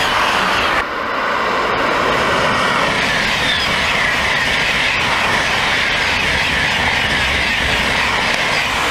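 TGV Duplex double-deck high-speed train passing at speed: a loud, steady rush of wheels on rail and air along the trainset. It cuts off suddenly at the very end.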